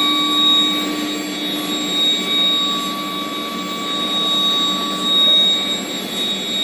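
Induction steel bar hardening and tempering furnace running: a steady machine noise with a high, held whine over it.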